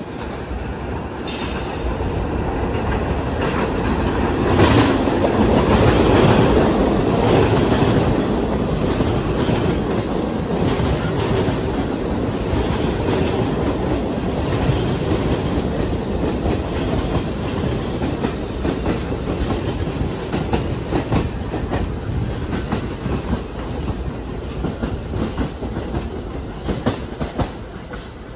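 New York City subway train running on outdoor track, its wheels clattering over the rail joints with a steady rumble. It is loudest about five seconds in and eases off slightly toward the end.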